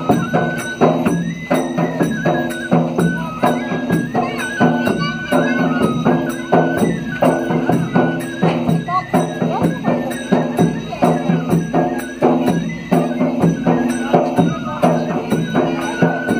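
Bhaderwahi Kud folk dance music: a steady percussion beat under a melody line that steps up and down, over low held tones.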